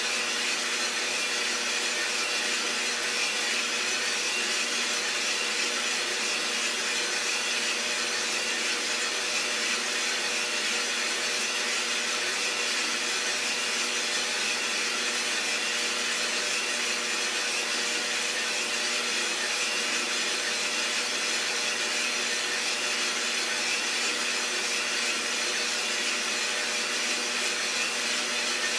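Iroster600 roasting machine running steadily mid-roast: an even motor and fan whir with a steady hum and no cracks or pops.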